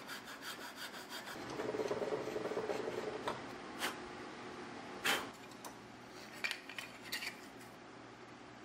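Round file rasping back and forth inside the hole of a knife-handle piece clamped in a bench vise: quick strokes, then a longer run of scraping. Then a few sharp clicks and knocks, the loudest about five seconds in, as the pieces are handled.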